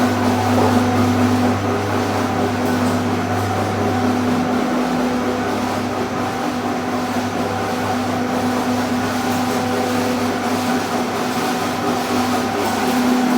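Hookah charcoal-making machine running with a steady mechanical hum; its deeper hum eases off a few seconds in and strengthens again near the end.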